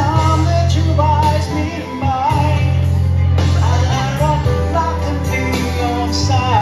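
A man singing live into a handheld microphone, amplified through a PA, over pop accompaniment with a steady bass line.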